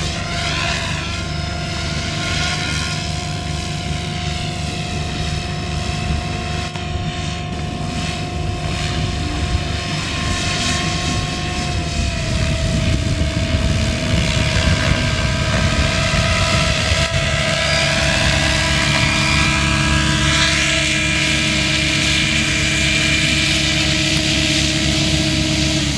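Electric SAB Goblin 630 RC helicopter flying: a steady whine of rotor blades and motor over a low throb. The pitch steps down about halfway through, and the sound grows louder in the second half as the helicopter comes down onto the grass.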